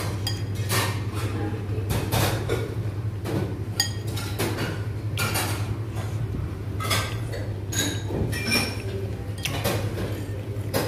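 Chopsticks and a metal spoon clinking against a noodle bowl, with scattered clatter of dishes and cutlery and a steady low hum underneath.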